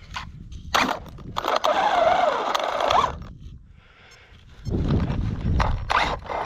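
Electric motor of an Arrma Outkast 8S RC truck whining and wavering in pitch for about a second and a half, with scraping and grinding from the drivetrain. The gears are stripped, so the rear wheels no longer drive. A low rumbling scrape follows near the end.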